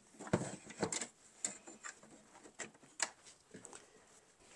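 Light, irregular clicks and taps of small decorative items being handled and set down, about one every half second, the loudest just after the start.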